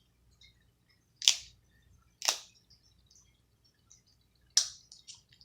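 Snow crab shells cracking as they are broken by hand: three sharp snaps, about a second in, near the middle and near the end.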